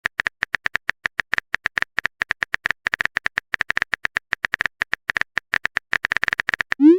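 Phone keyboard typing sound effect: a rapid, irregular run of short clicks, one per key tap. Near the end a short rising swoosh, like a text message being sent.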